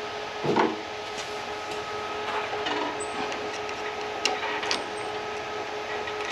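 Steady hum of a fan, with a knock about half a second in and a few light clicks further on, from hands and tools working the drive chain and its retaining clips off a reel mower.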